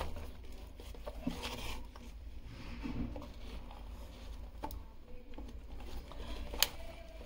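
Light scraping and rubbing handling noises, with a single sharp click near the end.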